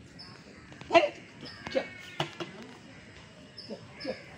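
A dog barking in short, sharp yelps, about six times, the loudest about a second in. A short high chirp repeats in the background.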